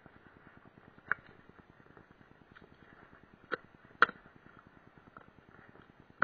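Cardboard box being handled and opened by hand: a few light knocks and rustles, one about a second in and two more around three and a half and four seconds, over a faint steady hiss.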